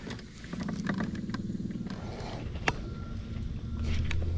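Spinning rod and reel being worked as a hooked crappie is reeled up, with light clicks and one sharper tick, over a low steady hum that strengthens near the end.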